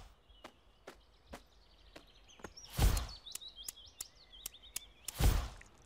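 Cartoon soundtrack of a quiet suburban scene: faint bird chirps and light taps about twice a second, broken by two short whooshes, about three and five seconds in.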